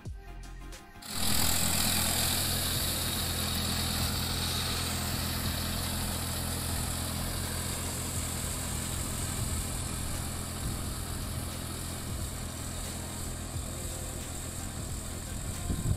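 Tractor engine running steadily while it puddles a flooded rice paddy with a harrow, churning the mud for transplanting. It cuts in about a second in and slowly grows quieter as the tractor works away.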